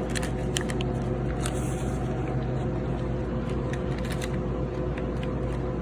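Steady electrical hum of vending machines, with a few light clicks and paper rustles near the start from handling money at the machine.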